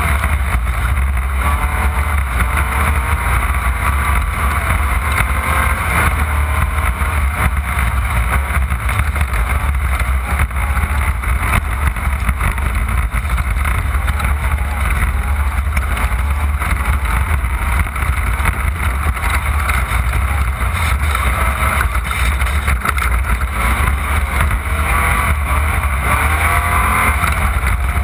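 Off-road race car's engine running hard under way, its pitch rising and falling with the throttle over a steady low rumble.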